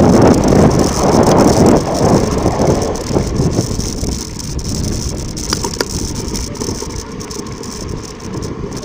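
Mountain bike riding fast downhill over loose volcanic ground, with a loud rushing and rattling noise of tyres and frame. It eases off steadily through the second half as the bike slows, leaving scattered clicks.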